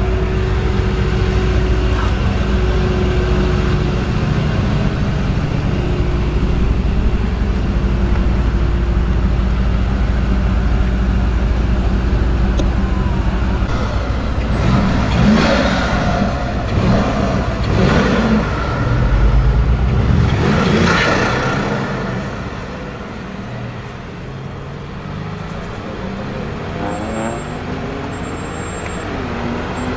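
Mercedes-AMG 4.0-litre V8 biturbo engine in a Mercedes-Benz V-Class van idling with a heavy low rumble, then revved sharply three times. Near the end an engine pulls away, its pitch rising in steps as if through gear changes.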